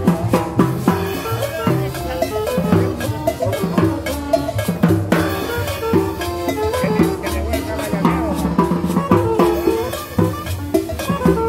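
Live band playing upbeat dance music: a snare drum kit struck in a busy steady rhythm, with a saxophone carrying a melody over it.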